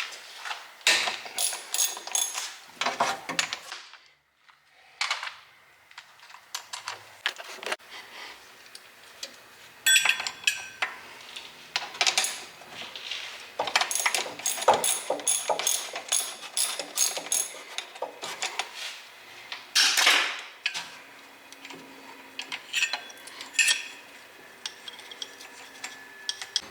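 Hand ratchet wrench clicking in short runs and metal tools clinking while working the rear differential's bolts, with a few louder metallic clanks.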